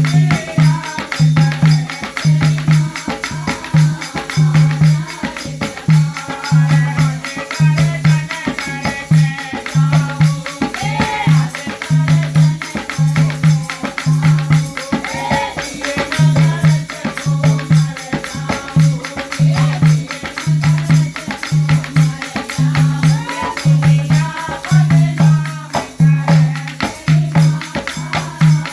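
Instrumental music from a Haryanvi folk bhajan: a deep drum beat about once a second under busy high percussion, with a wavering melody line above.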